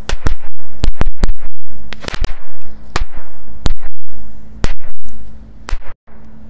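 A batch of thrown firecrackers going off in a fast, irregular string of loud sharp bangs, more than a dozen of them, sometimes two or three close together. The string ends about a second before the end.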